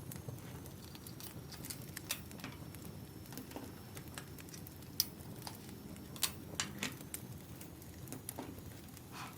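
Wood fire crackling: irregular sharp pops and snaps, the sharpest about five seconds in, over a steady low rumble.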